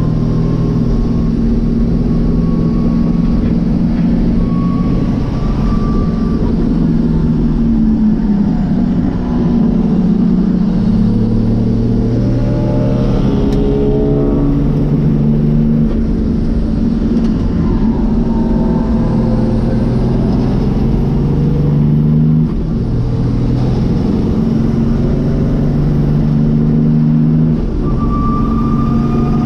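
Nissan RD28 2.8-litre straight-six diesel engine in an S13 race car, heard from inside the cabin, running hard on track. Its pitch holds steady, then steps up and down several times as the revs change, with two short dips in loudness near the end.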